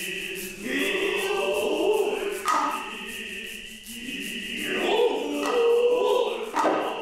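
Noh jiutai chorus chanting in unison over the hayashi ensemble: a sustained, shrill nohkan flute line and two sharp drum strokes, about two and a half seconds in and near the end.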